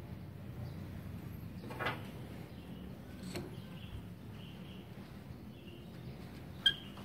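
Parts of a TIG welding torch being fitted together by hand: a brief scrape about two seconds in and a sharp click near the end, over a steady low background hum.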